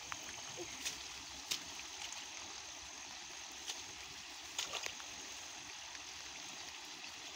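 Hands sloshing and groping through shallow muddy water, with a few small sharp splashes: around one and a half seconds in, and a quick cluster near five seconds, over a steady high hiss.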